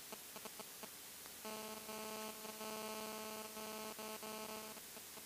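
A faint, steady electronic buzzing tone in the cockpit intercom audio. It starts about a second and a half in, breaks off briefly a few times, and stops near the end. Fast faint ticking, about five a second, comes before it.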